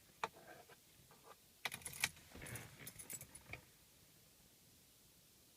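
Car keys jangling and clicking in the hand for about three and a half seconds, then stopping.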